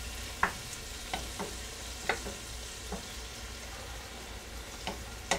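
Shrimp sizzling in a nonstick skillet in olive oil just splashed with dry white wine, stirred with a wooden spoon. The sizzle is soft and steady, with a few sharp ticks scattered through it.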